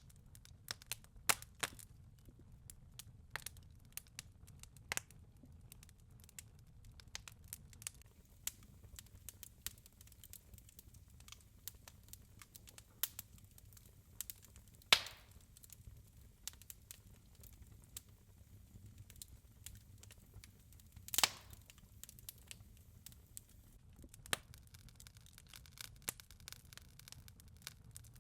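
Wood fire in a fireplace crackling quietly, with scattered small pops over a low rumble and two louder pops about fifteen and twenty-one seconds in.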